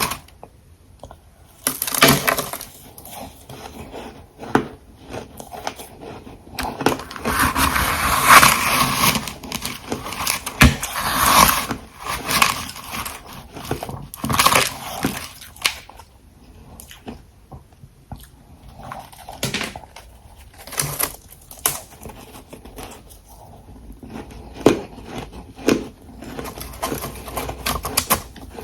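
Close-miked biting and chewing of hard ice: loud crunches in irregular bursts, with short pauses between bites.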